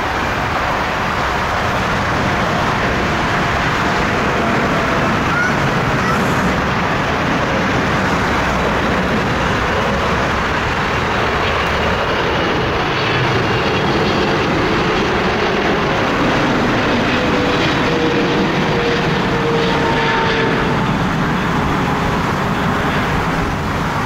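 Boeing 777 freighter's twin GE90 turbofans at low approach thrust on final approach, a steady jet rumble and hiss. Faint whining tones drift slightly down in pitch through the middle of it.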